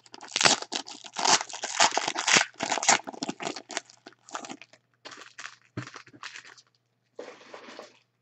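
Foil trading-card pack wrapper crinkling and tearing as it is opened by hand: a fast run of crackles, loudest in the first three seconds, thinning to lighter, scattered rustles.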